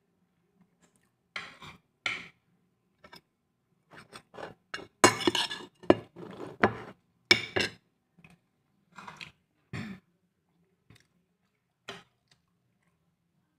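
Plates and food being handled at a dining table by hand: irregular short clinks and clatters, busiest and loudest about five to eight seconds in.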